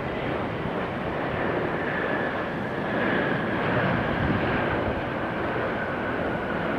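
Jet airliner engines: a steady rush with a faint high whine that slowly falls in pitch, swelling a little around the middle.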